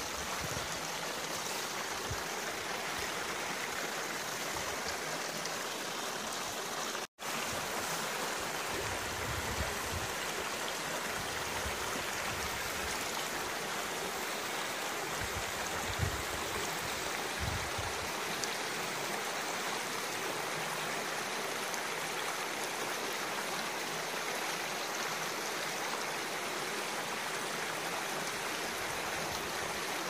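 Shallow rocky mountain stream running over stones: a steady rush and babble of water, cut off for an instant about seven seconds in.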